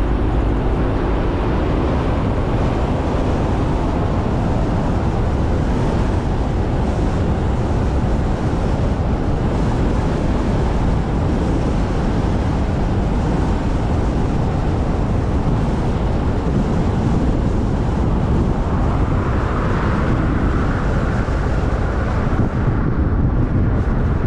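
Steady rush of a moving car's road and wind noise, heaviest in the low end, with wind buffeting the microphone.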